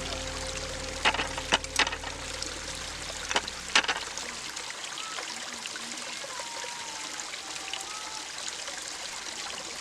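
Running water, a steady trickling flow, with several sharp clicks or knocks in the first four seconds.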